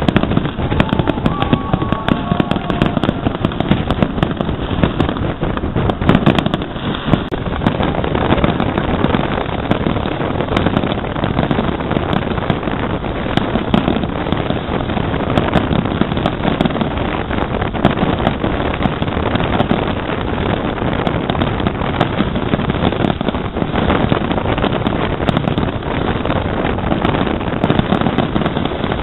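Wind buffeting the microphone in a steady rush, over the many small pops and crackles of an aerial fireworks display going off below.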